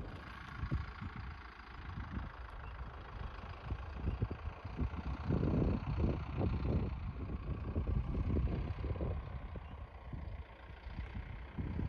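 Wind buffeting the microphone in uneven gusts, over the faint, steady running of the Mercedes Vario 818 camper truck's diesel engine as it drives along a rough dirt track.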